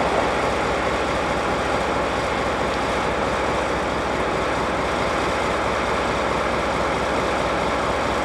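Steady mechanical rumble with a hiss, like an engine idling; it holds level throughout without fading or changing.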